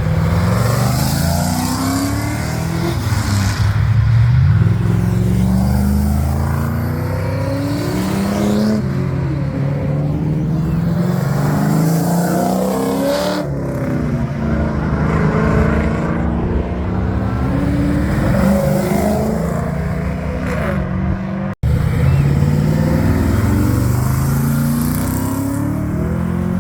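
Muscle-car engines accelerating hard, the engine note climbing, dropping back at each gear change and climbing again, several times over. About two-thirds of the way through, the sound breaks off abruptly and picks up again.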